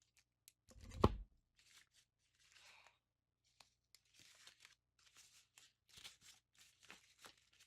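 Unboxing packaging being handled: a thump about a second in, then crinkling, tearing and rustling of wrapping with scattered small clicks as the Alarmo is unwrapped.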